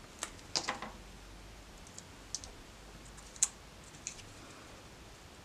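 A few light, scattered clicks and taps of small paper pieces being handled and pressed down onto a tag on a craft cutting mat, one tap a little past the middle standing out.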